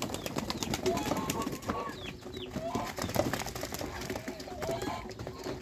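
A flock of domestic geese calling with short, scattered honks and chirps, over a steady patter of small clicks and taps.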